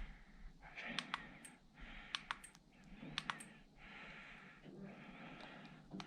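Faint clicks of buttons being pressed on a handheld action camera while its recorded footage is checked, coming in close pairs three times, with soft handling noise between.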